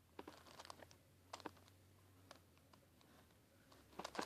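Faint, scattered plastic clicks of a 4x4x4 Rubik's cube's layers being turned by hand, a few louder ones about a second and a half in and a small cluster near the end, while edge pieces are being paired.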